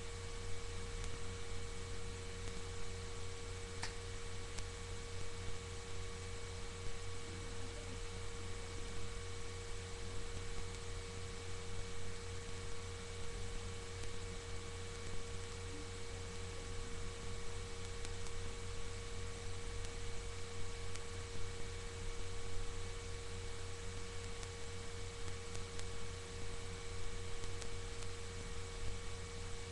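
Steady electrical hum and hiss with a constant mid-pitched tone: the background noise of a webcam recording, with one faint click about four seconds in.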